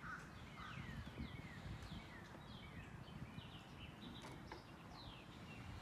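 Birds chirping outdoors: many short, quick falling chirps, faint, over a low steady rumble.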